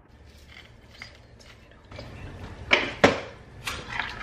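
A metal spoon stirring sauce in an Instant Pot's stainless steel inner pot: a quiet start, then swishing with sharp clinks of the spoon against the pot, the loudest two a little under three seconds in.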